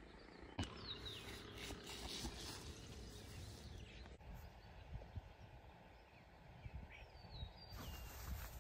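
Faint outdoor ambience: a few birds chirping in short downward-sliding notes over a low steady rumble, with one sharp knock about half a second in.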